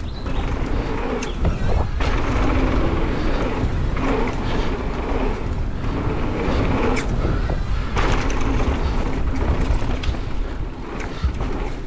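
Mountain bike riding down a dirt trail: a steady rush of wind on the microphone and tyre noise, with scattered knocks and rattles as the bike goes over bumps.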